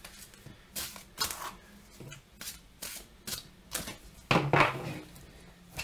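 A tarot deck being shuffled by hand: an irregular run of crisp card flicks and slaps, about eight in all, the loudest a little past four seconds in.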